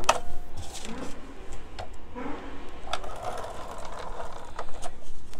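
A Scotch Advanced Tape Glider (ATG tape gun) run along cardstock, laying a strip of double-sided adhesive: an uneven mechanical whirring with several sharp clicks.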